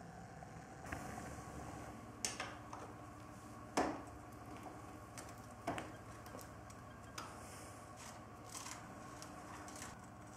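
Faint metallic clicks and scrapes of a spanner working a pocket bike's front axle nut loose, with a handful of sharper clicks, the loudest about four seconds in.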